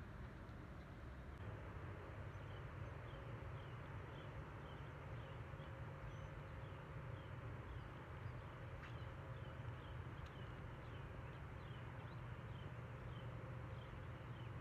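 Low steady rumble, with a faint, short high chirp from a small animal repeating about twice a second through most of it.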